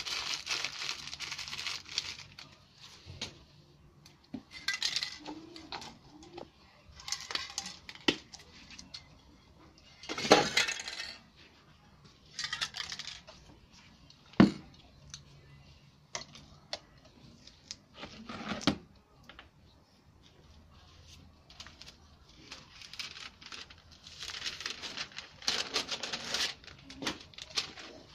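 Aerosol spray paint cans hissing in short bursts, with sharp clinks and knocks of cans and caps being picked up and set down on the table.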